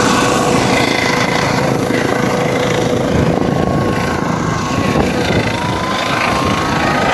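A light helicopter's turbine and rotor run at speed on the ground, just before it lifts off. The noise is a loud, steady whir, with a faint whine that rises slightly after the middle.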